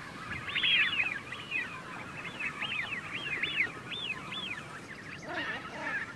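Black-tailed godwits calling: quick, repeated calls that rise and fall in pitch, several a second. About five seconds in, lower honking calls join in.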